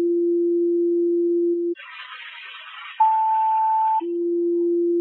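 Fire dispatch radio alert tones, typical of two-tone sequential pages that alert the units about to be dispatched. A steady low tone stops about a second and a half in, followed by a moment of radio hiss. A higher tone then sounds for about a second and drops to the same low tone, which holds to the end.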